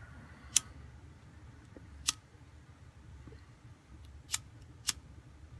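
Hand-held lighter clicked four times, sharp single clicks a second or two apart with the first the loudest, as a tobacco pipe is being lit.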